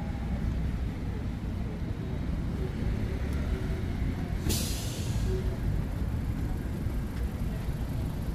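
City street traffic: a steady low rumble of passing vehicles, with one short, sharp air-brake hiss about halfway through.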